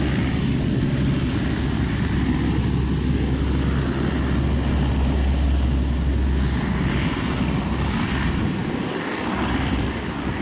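Lockheed C-130H Hercules turboprops running as the aircraft rolls along the runway: four Allison T56 engines and propellers give a loud, steady drone. The deepest part of the drone thins out about two-thirds of the way through.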